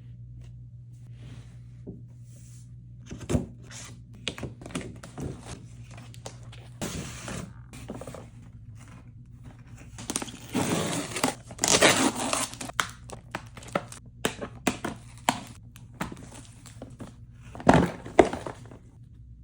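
Packaging of a Breyer model horse being handled and opened: scattered knocks, scrapes and crinkling, a long tearing about ten to twelve seconds in, and two sharp thunks near the end.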